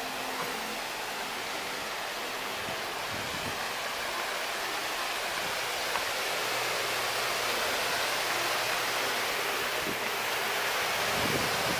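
Steady rushing hiss of water splashing and pouring in a deck pool and hot tub fountain, growing a little louder in the second half.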